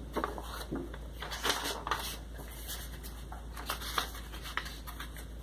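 Coloring book pages being handled and flipped by hand: an irregular run of short, crisp paper rustles and swishes.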